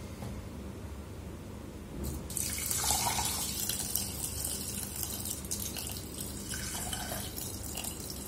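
Water poured in a steady stream from a cup into a stainless steel pot of dry rice, splashing onto the rice and the pot. It starts about two seconds in.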